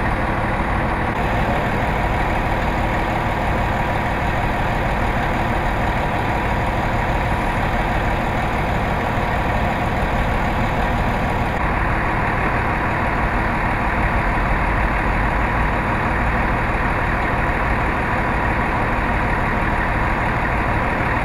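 Large truck engine idling steadily, a constant engine noise with a faint steady hum.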